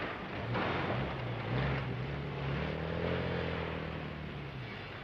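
Jaguar car's straight-six engine running as the newly built car is driven off under its own power. The engine note rises about a second and a half in, holds, then fades away near the end.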